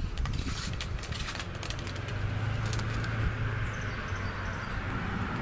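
Knocks and scuffs of a removed car wheel and tire being handled and set aside on a concrete driveway, mostly in the first second and a half. A steady low hum comes in about two seconds in.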